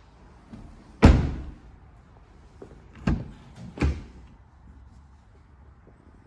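A car door on a Range Rover Velar shuts with a heavy thud about a second in, followed by two shorter door clunks about two and three seconds later.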